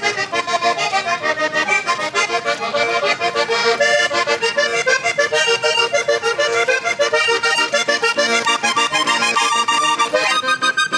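Hohner Corona III three-row diatonic button accordion played solo in vallenato style: a quick run of melody notes over chords, with an even pulse.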